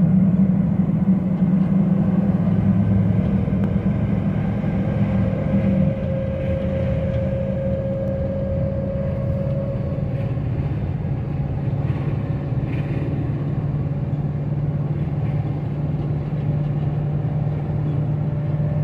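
Steady engine and road drone heard from inside the cab of a Dodge Ram 4500 bucket truck cruising at about 50 mph. It drops slightly in level about six seconds in.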